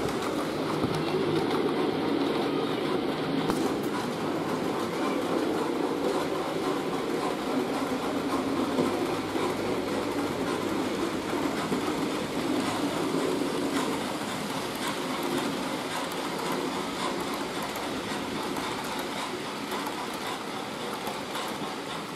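Model railway trains running on the layout's track: a steady rumble of the locomotives' motors and wheels rolling over the rails, easing a little about two-thirds of the way through.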